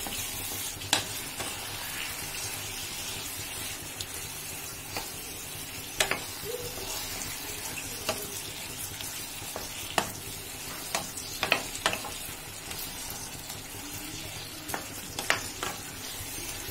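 Soya chunks and potato pieces sizzling in spiced oil in a kadai while being sautéed, a spatula stirring and scraping the pan with a sharp scrape or knock every few seconds over a steady hiss.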